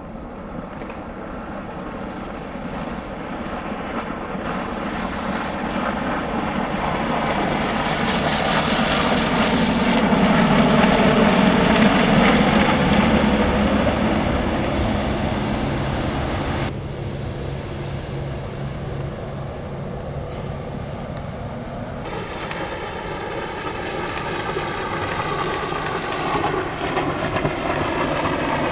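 Waterjet-propelled rescue boat running at speed past the listener, engine and rushing wash swelling to a peak about a dozen seconds in, with the pitch dropping as it goes by. The sound cuts off abruptly about two-thirds of the way through and a second pass-by builds again near the end.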